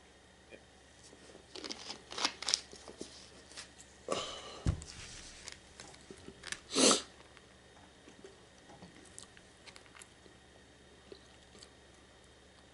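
Close-miked eating: chewing orange chicken and brown rice, with scattered crunches and clicks of a plastic fork against a foam takeout box. The sounds are busiest in the first half, with one low thump about halfway and the loudest burst shortly after, then thin out to faint ticks.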